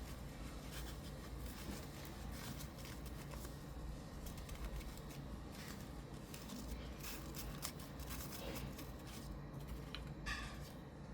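Plastic toy pieces and packaging being handled: scattered light clicks, taps and rustles over a low steady hum.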